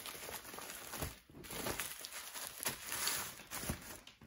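Bubble-wrap packaging crinkling and rustling as it is handled and set down, with scattered sharp crackles.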